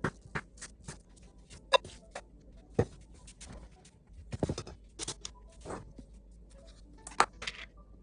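Irregular clicks and knocks of kitchen utensils and cookware being handled, a few sharper knocks standing out.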